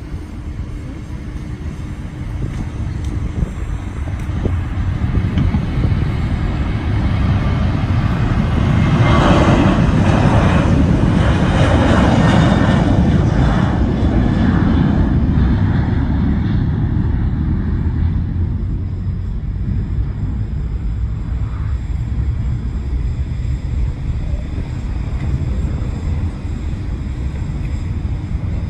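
TUI Boeing 737 jet airliner's engines at takeoff power during the takeoff roll and climb-out: the engine noise builds, is loudest about nine to thirteen seconds in as the jet passes, then slowly fades as it climbs away.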